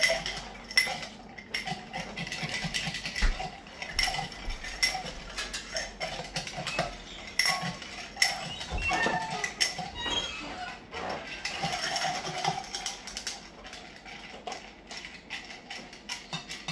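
Long metal bar spoon stirring a cocktail in a tall glass packed with ice: a continuous, irregular run of clinks and rattles of metal against ice and glass as the drink is pulled up through the ice.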